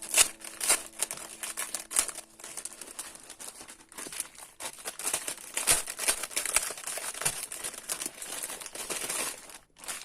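Packaging wrapper of a homemade squishy being handled and crinkled: continuous crackling with many sharp crackles, the loudest near the start and about two seconds in, easing off briefly near the end.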